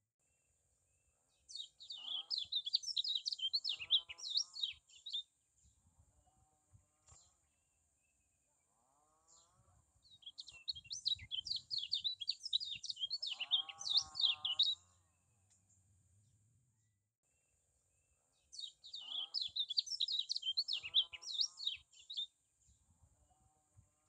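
Caged kecial kuning white-eye singing: three bursts of rapid, high twittering chirps, each a few seconds long, with pauses between. Fainter, lower wavering calls from another animal sound in the background.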